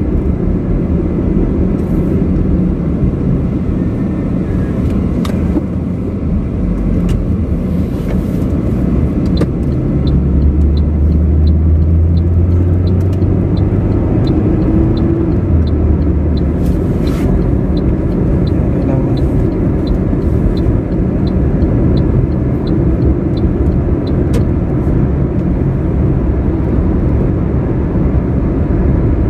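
Steady engine and road rumble inside a moving car. From about ten seconds in until near the end, a faint regular ticking comes about twice a second.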